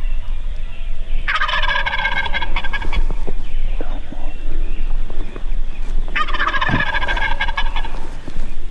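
Wild turkey tom gobbling twice, two rattling gobbles about five seconds apart.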